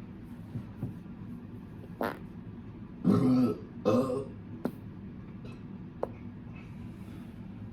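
A person farting twice in quick succession, two short pitched blasts about three and four seconds in.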